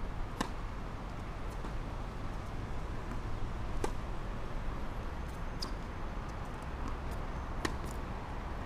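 Tennis ball struck by rackets during a rally: a serve just after the start, then three more sharp pops a couple of seconds apart, over a steady low background rumble.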